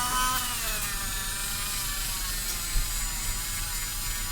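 Small electric motor running steadily with a faint whir, and a brief wavering tone in the first moment.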